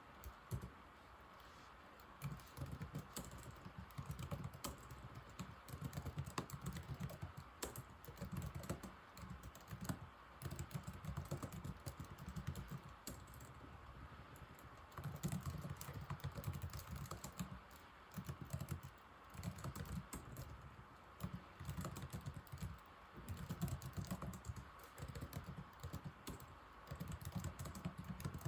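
Typing on an old laptop keyboard: quick runs of key clicks in bursts of a few seconds, with short pauses between them. A faint steady hum sits underneath.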